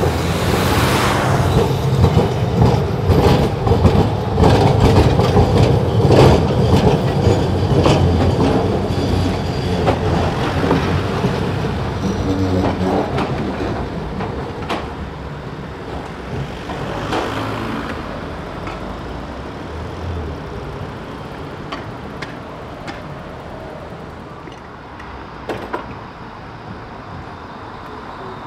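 Electric tram rolling through a track junction, its wheels clattering over the rail crossings. The sound then fades steadily as it moves away.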